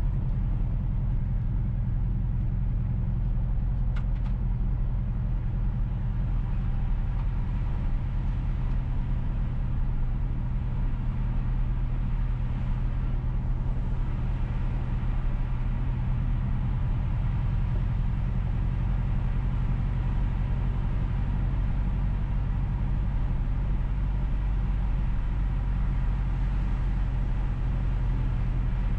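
Steady low rumble of a car driving along a paved road: engine and tyre noise, even throughout, with a faint click about four seconds in.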